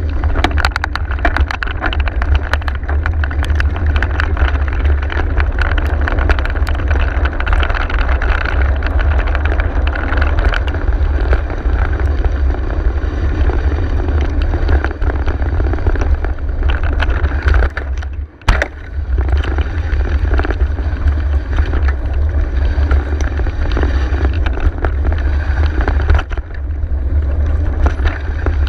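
Mountain bike riding over a rough dirt single track, heard from a camera on the bike or rider. A steady wind rumble on the microphone runs under constant rattling and clicking from the bike over the ground. About eighteen seconds in the noise dips briefly and there is one sharp knock.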